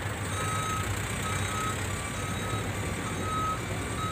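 Vehicle reversing alarm beeping about once a second on a single high tone, over a steady low engine hum.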